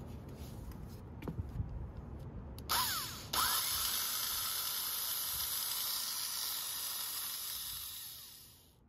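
Restored Craftsman 315.7721 electric drill's motor switched on a few seconds in, a short burst then a restart, rising in pitch as it spins up, then running steadily with a high, hissing whir for about five seconds before winding down near the end. Before it starts, light knocks from handling the drill.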